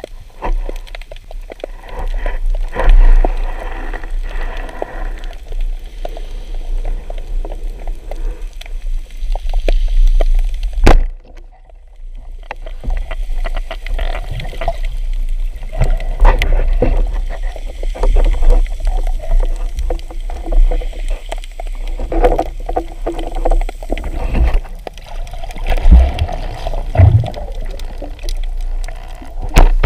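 Water moving and gurgling around a spearfisher's camera during a shallow-water dive, with a constant low rumble and scattered clicks and knocks.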